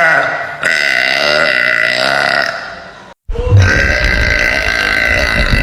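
A woman belching loudly in long, deep burps. One finishes just after the start, a second lasts about two seconds, and after a brief gap a third begins about three seconds in and is still going at the end.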